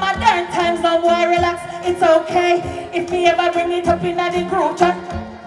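Dancehall music played loud over a concert sound system, a steady held keyboard tone under a woman singing live into a microphone.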